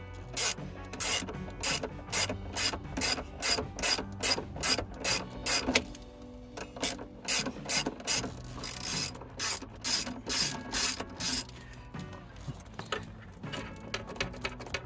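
Hand ratchet wrench clicking in short strokes, about two clicks a second, as a nut on a car battery is worked loose. It pauses briefly near the middle and stops about three seconds before the end.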